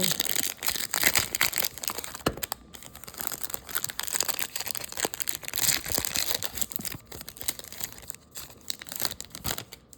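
Trading card pack wrapper being torn open and crinkled in the hands, a busy crackling that fades just before the end.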